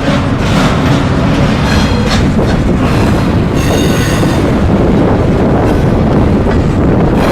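Freight train rolling past, a steady rumble of wheels on rail, with brief high-pitched wheel squeals about two and four seconds in.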